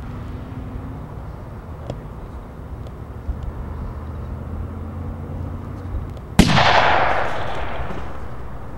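A single gunshot about six seconds in, with a long echoing tail that fades over about two seconds, over a low steady rumble.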